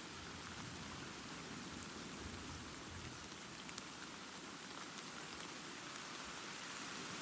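Steady rain falling, with a low rumble of distant thunder swelling underneath a couple of seconds in.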